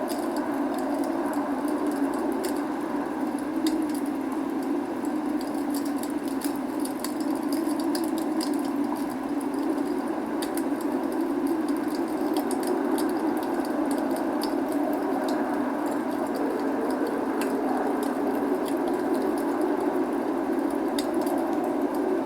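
Wood logs burning in a fireplace, crackling with frequent small sharp pops, over a steady rain hiss.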